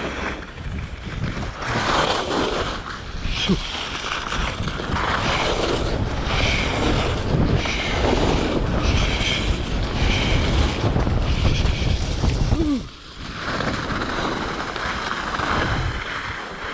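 Wind buffeting the microphone: a steady rushing rumble with gusty swells, dropping briefly about thirteen seconds in.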